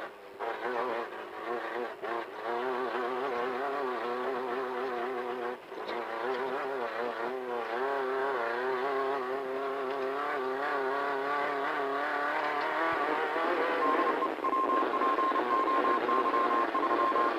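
Desert race car's engine running hard, heard from inside the cockpit, its pitch wavering up and down as the throttle and revs change. It grows rougher and louder in the last few seconds, when a pulsing high beep starts.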